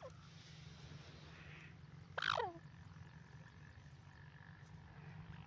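Grey francolin giving one short, loud call that slides downward in pitch, about two seconds in, with a fainter short falling note at the very start. A steady low hum runs underneath.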